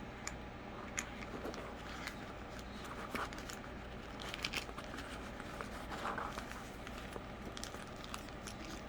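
Crinkling, rustling and light taps of a diamond painting canvas and its packaging being handled, in short scattered bursts over a steady low hum.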